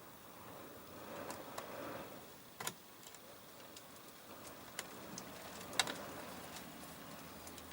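Scattered light clicks and taps of small parts and tools being handled during reassembly of an RC truck chassis and gearbox, with two sharper clicks about two and a half and six seconds in, over a faint rustle.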